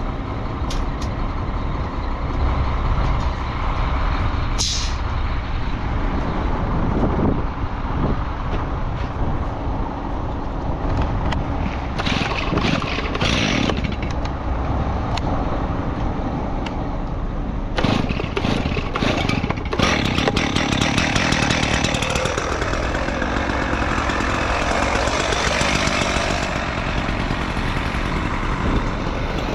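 Truck engine running with steady low rumble and road noise while driving, with occasional short knocks and rattles.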